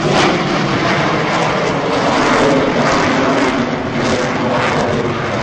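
Harrier jump jet's Rolls-Royce Pegasus turbofan passing overhead, a loud, steady jet noise.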